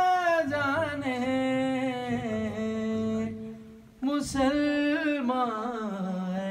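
A man's voice singing a manqabat (devotional praise poem) into a microphone, in long held, ornamented notes that bend up and down. The voice drops away a little after three seconds in and comes back in about four seconds in.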